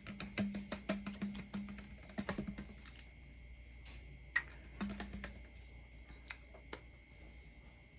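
Light clicking and tapping, quick and dense for about the first three seconds, then a few scattered clicks.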